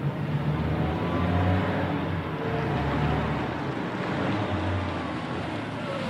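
Car on the move: a steady drone of engine and road noise.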